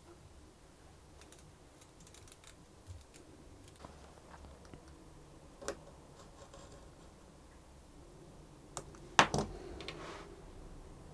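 Faint scraping and small clicks of a craft knife picking and cutting the old wire winding and leather off a wooden violin-bow stick. About nine seconds in comes a louder clatter as the metal-handled knife is laid down on the wooden workbench.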